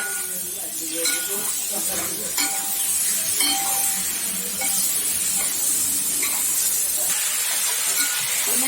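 Raw beef being mixed with spices in a metal vessel: stirring and scraping with scattered light clinks and clicks, over a steady high hiss.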